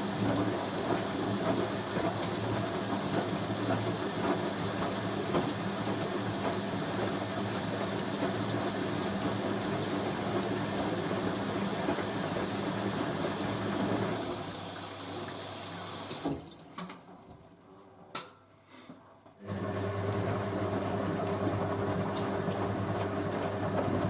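Hoover A3060 Electronic 1100 washing machine filling with water through its inlet valve: a steady rush of water with a low hum for about fourteen seconds. The fill then fades and stops, a few clicks come in the quiet, and a little later the machine starts running again with a steady hum.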